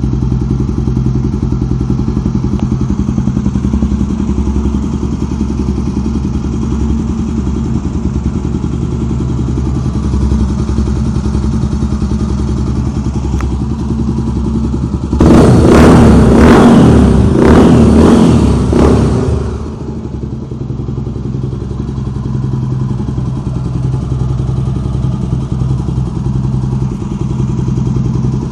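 Honda Tornado 250's single-cylinder four-stroke engine idling through a Yoshimura exhaust. About halfway through it is revved in a few quick, much louder blips for about four seconds, then it settles back to idle.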